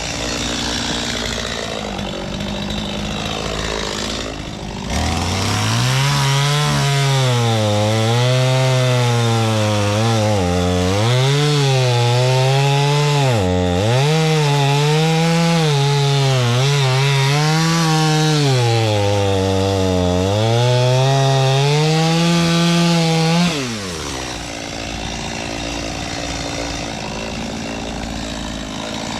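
Chainsaw cutting wood from the fallen tree. It runs at a low speed for the first few seconds, then goes to full throttle about five seconds in. The engine note dips and recovers over and over as the chain bites into the wood, then drops back to a low speed about six seconds before the end.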